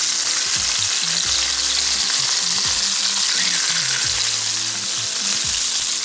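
Salmon fillets sizzling steadily in hot olive oil in a frying pan, just turned over to fry the second side.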